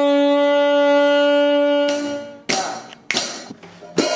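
Saxophone holding one long, steady note that stops about two and a half seconds in. A few short, bright hits follow.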